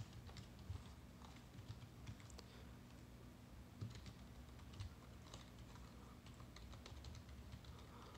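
Computer keyboard being typed on faintly, a dozen or so scattered keystrokes at an uneven pace.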